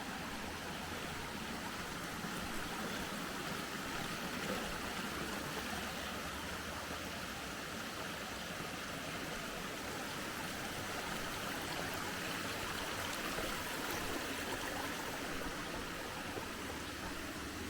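Flowing water running steadily with an even rush, like a small stream or spring outflow.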